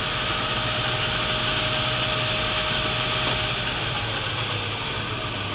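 Hardinge HLV-H super-precision toolroom lathe running at its top spindle speed of 3,000 RPM in high range: a steady hum and whir with a thin whine that dips slightly in pitch after about three and a half seconds.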